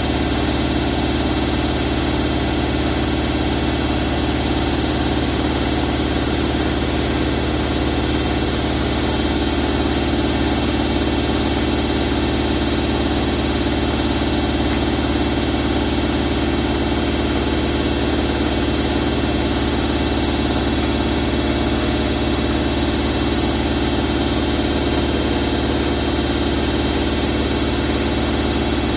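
Hoover A3308 Computer Control 1100 washing machine in its final spin, the drum and motor running at a steady high speed. A steady hum comes with a high whine, with no speeding up or slowing down.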